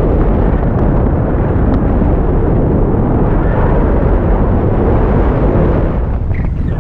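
Wind buffeting the microphone: a loud, steady rushing rumble, heaviest in the low end.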